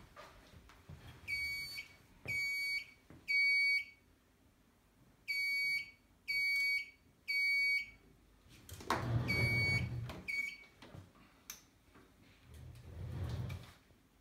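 Fire alarm sounder on an Edwards EST3 system beeping in a temporal-three evacuation pattern: three short beeps about a second apart, a pause, three more, then two further beeps partly covered by low rumbling noise. The system is in alarm after two alarm inputs were triggered.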